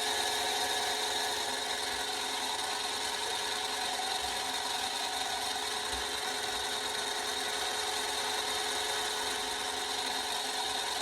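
Mini lathe running steadily while cutting mild steel, a constant motor whine under an even scraping noise.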